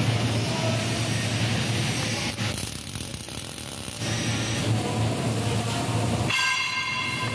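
MIG welding gun arc-welding twisted square bars onto the steel flat bars of a grating: a steady crackling hiss with a low hum, easing off for about a second and a half before resuming. Near the end, a ringing tone sounds for about a second.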